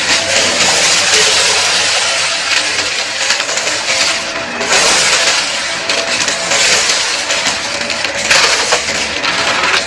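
Shark Navigator upright vacuum running, its motor giving a steady whine under a loud rush of air, with a crackling crunch of confetti, sequins and grit being sucked up off carpet. The rush swells and ebbs with the push strokes, brightest about halfway through and again near the end.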